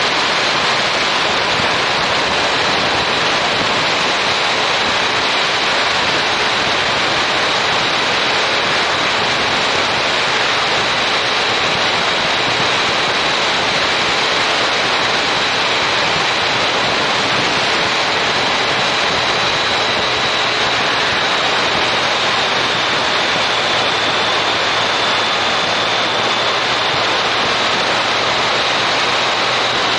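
Steady rush of wind noise on the camera microphone of a Yamaha MT-09 Tracer motorcycle riding at road speed, with a faint low hum beneath it.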